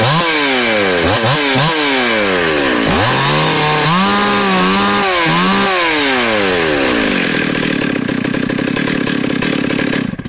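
Ported Stihl 028 AV Super chainsaw with a dual-port muffler being revved: several quick throttle blips, then held at high revs for a few seconds with the pitch wavering, then dropping back to idle before going quiet near the end. It is really loud and screams at full throttle; the owner reckons it is turning about 14,000 rpm and running pretty rich.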